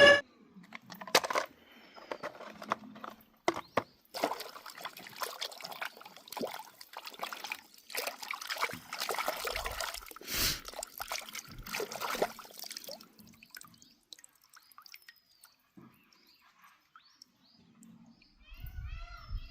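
Water sloshing and trickling, with irregular splashes and clicks that thin out about two-thirds of the way through.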